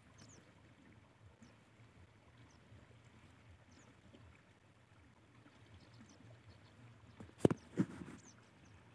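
Two loud knocks about seven and a half seconds in, handling noise from the phone as it is jerked away. Behind them is a quiet outdoor background with faint high chirps now and then.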